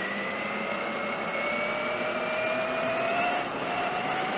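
Traxxas E-Maxx RC truck's electric motor and drivetrain whining as the truck rolls on asphalt, the whine rising slowly in pitch as it gathers speed, over a steady rush of tyre and rolling noise.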